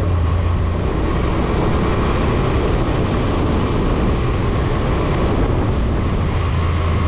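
Motorcycle engine running under way on the road, its low drone under a steady rush of wind and road noise over the microphone.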